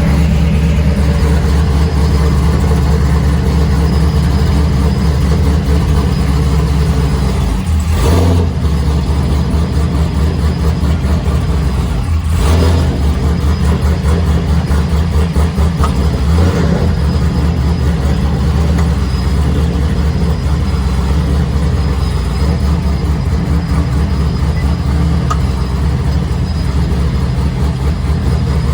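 Fifth-generation Chevrolet Camaro SS V8 running, a steady low drone with brief louder swells about eight, twelve and sixteen seconds in.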